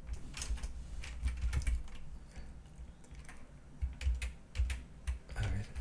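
Computer keyboard keys clicking in irregular clusters of quick taps with short gaps between, each tap with a dull knock, as keyboard shortcuts are pressed.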